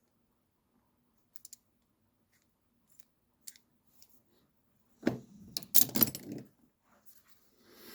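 Rusty metal hand tools clinking and clattering as they are handled and set down: a few light clicks, then a louder clatter about five seconds in.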